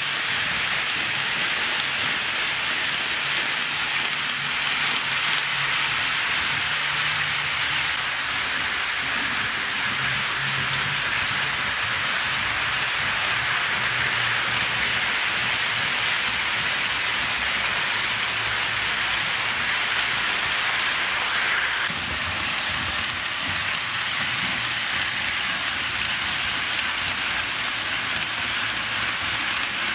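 HO scale model trains running on track: a steady rushing hiss of small metal wheels rolling on the rails, with a faint low motor hum that shifts in pitch. The hiss dips slightly about two-thirds of the way through.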